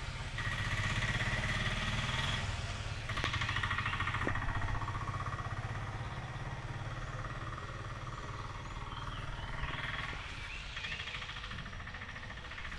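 A large coach's diesel engine idling with a steady low rumble. Birds chirp faintly now and then over it.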